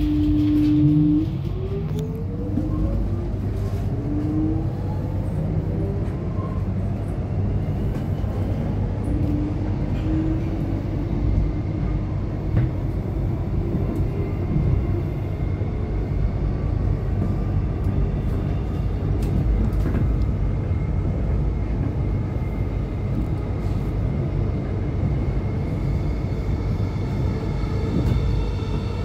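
Electric suburban train pulling away, heard from inside the carriage: the traction motors whine, rising in pitch over the first several seconds. The train then runs on with a steady rumble of wheels on track.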